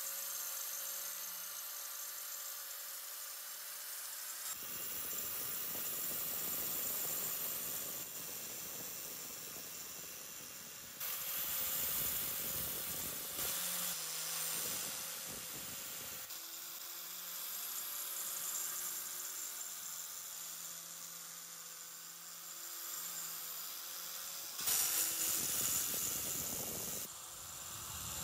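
A power tool's spinning wire cup brush scrubbing rust off a steel dagger blade: a steady motor hum under a scratchy hiss of wire on metal. The sound changes abruptly several times, growing louder and harsher when the brush bears on the blade.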